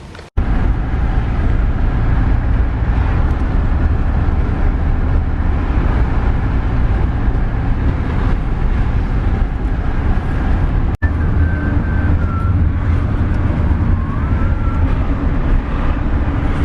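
Steady, loud low rumble and hiss of a moving car, starting abruptly, with a brief dropout about two-thirds of the way through.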